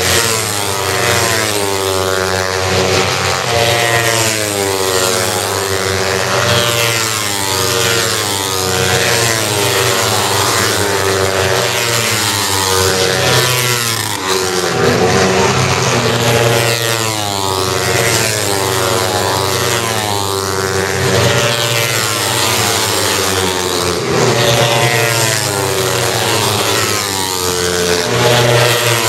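Grand Prix racing motorcycles passing one after another at full throttle. Their engine notes climb in steps through the gears, then fall away as each bike goes by, often several at once.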